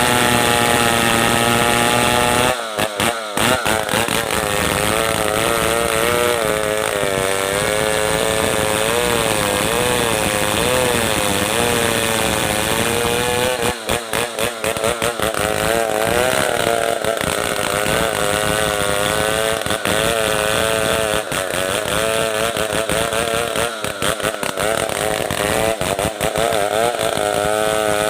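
Stihl 070 two-stroke chainsaw running under load while cutting merbau hardwood, its engine pitch wavering up and down as the chain bites into the wood.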